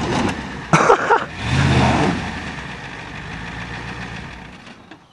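Ford pickup truck's engine revving up twice and then easing off, as the truck sits stuck on the cars it is crushing. A sharp, loud sound cuts in about a second in.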